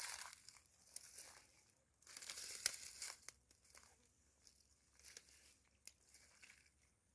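Crunching and rustling of dry grass and brush being trampled and brushed through on foot, in a few irregular bursts, loudest about two to three seconds in, then fainter.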